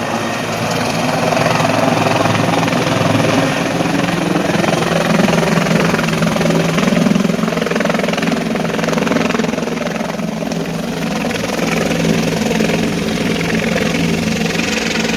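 Helicopter close by as it lands, its rotor and turbine running steadily and loudly.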